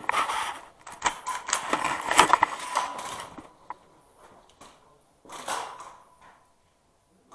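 Footsteps and the clatter of carried gear as a player moves: a dense, irregular run of clicks and knocks for about the first three seconds, then quieter, with one short rustle a little past halfway.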